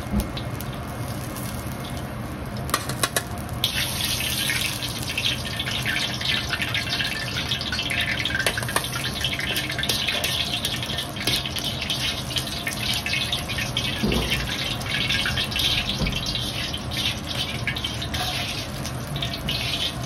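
Sichuan peppercorns sizzling in hot oil in a wok, a dense crackling fizz that gets louder about four seconds in, over a steady low hum.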